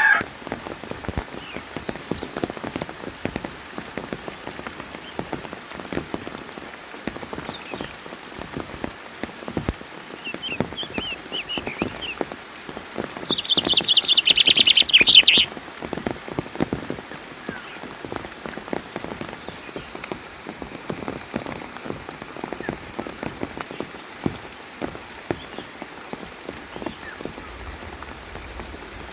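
Rain falling onto a surface, heard as a steady patter of separate drops. About halfway through, a rapid, high chirping trill runs loud for about two seconds, with a few fainter short chirps earlier.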